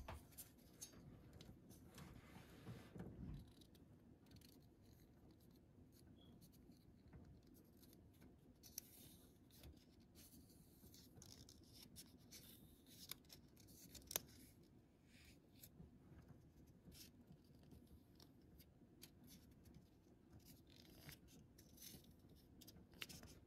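Faint handling noise: light plastic and metal clicks and rubbing as a finned aluminium CPU heat sink with plastic push-pin feet is handled and old thermal paste is wiped from its base, with one sharper click about fourteen seconds in.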